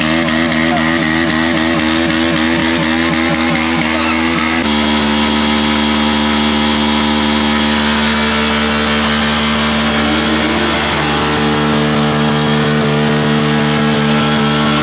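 Motorcycle engine held at steady high revs during a rear-tyre burnout. There is a sudden change in pitch about four and a half seconds in.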